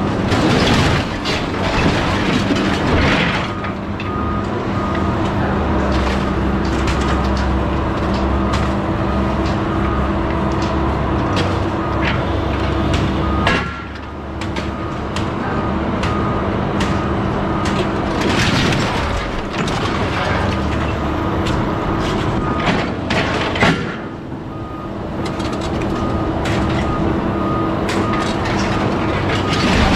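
An engine running steadily while scrap metal clanks and knocks as pieces drop into the truck bed, with the steady beeping of a reversing alarm behind it.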